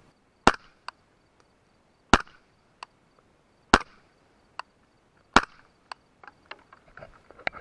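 Four suppressed rifle shots, evenly about a second and a half apart, from a 300 Blackout rifle fitted with an AB Suppressors Raptor suppressor reflexed back over the barrel. Fainter clicks and ticks fall between the shots.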